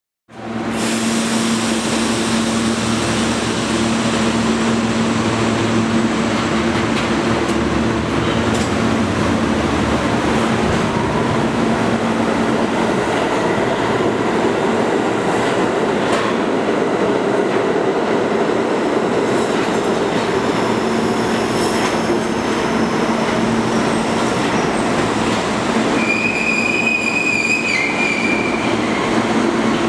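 New York City Subway train of Budd R32 cars running along an underground station platform: a steady rumble of wheels on rail with a low hum. A brief high wheel squeal comes near the end.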